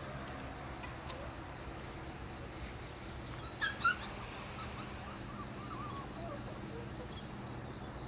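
Steady high-pitched drone of insects in summer grass, with two quick high squeaks about three and a half seconds in.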